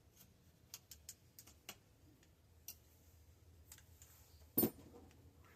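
Scattered light metallic clicks and taps of tools and bicycle parts being handled during a teardown, with one louder knock about four and a half seconds in.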